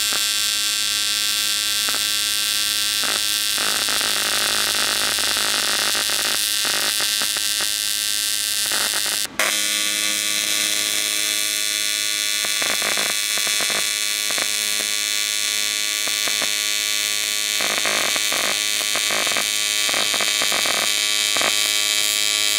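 AC TIG welding arc on aluminum from an AHP TIG welder: a steady, loud electric buzz with a hiss over it. About nine seconds in it drops out briefly with a sharp click, then the buzz carries on.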